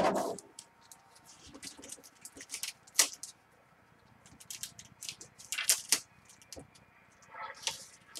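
A knock at the start, then scattered light clicks and short rustles of things being handled, the sharpest about three seconds in and two rustly bursts near the end.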